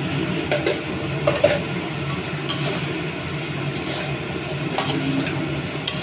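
Steel slotted spatula scraping and knocking against a metal kadai while fried rice is stirred and tossed, with a few sharp clicks, over a steady hiss.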